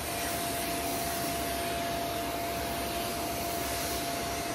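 Pet grooming vacuum with its hose-mounted clipper attachment running on a dog's coat: a steady suction rush with a constant whine.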